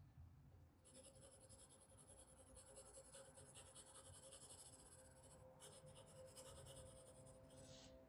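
Pencil shading on paper: a faint, continuous scratching of the lead across the sheet, with a brief pause about five and a half seconds in.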